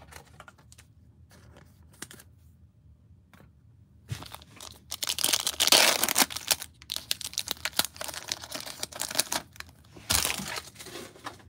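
Foil trading-card pack wrapper crinkling and being torn open by hand. It starts about four seconds in after a few faint clicks, crackles on for several seconds, and ends in a second short rip near the end as a strip of the wrapper comes off.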